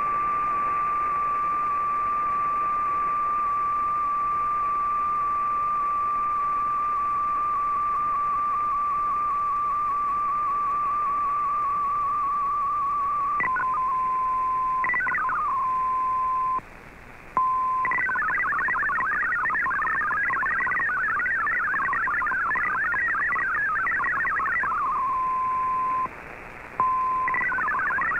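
MFSK digital data signal from a shortwave radio receiver. For about thirteen seconds it is a single steady whistle-like tone with a slight waver: the end of an MFSK picture transmission. It then drops to a lower steady tone broken by rapid warbling bursts of many quick tones, the longest about seven seconds, which are MFSK64 text being sent, with two brief dropouts.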